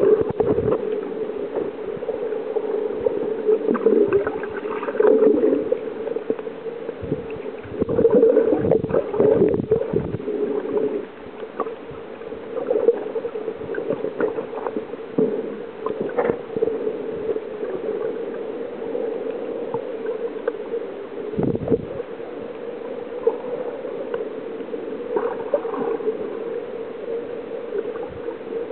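Muffled underwater noise picked up by a submerged camera: a steady drone of water against the housing, with louder sloshing surges twice in the first ten seconds and scattered small clicks.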